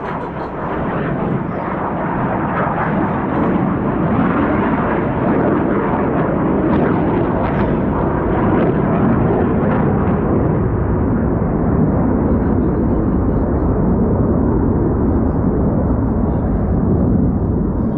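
Jet engine noise from Black Eagles T-50 trainers in flight: a loud, steady rushing sound that builds over the first few seconds and holds, its higher hiss dulling in the second half.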